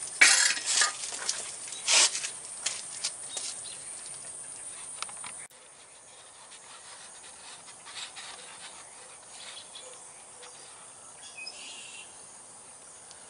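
Sharp metal knocks and clicks from handling air-brake parts, loudest about a third of a second in and again at two seconds. After that comes a quieter stretch with a few faint ticks over a steady high chirring of insects.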